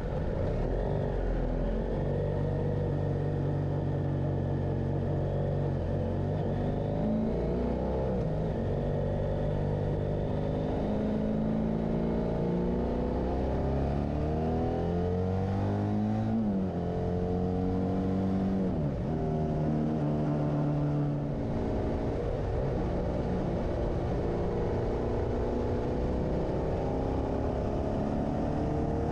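Motorcycle engine under way, its pitch climbing as it accelerates and dropping back at each gear change, several times over, above a steady rush of wind and road noise.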